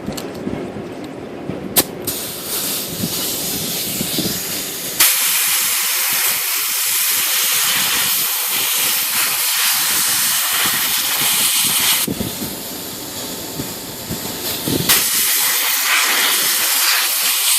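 Compressed-air blow gun blowing out a typewriter's type-bar segment: a lighter hiss, then two loud blasts of air, a long one about five seconds in and a shorter one near the end.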